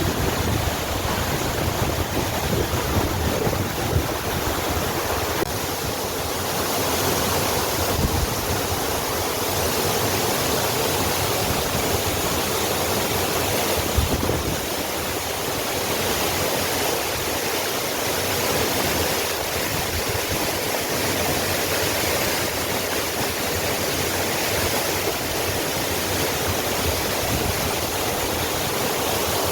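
Waterfall: a steady, even rush of falling water, with a couple of brief low thumps partway through.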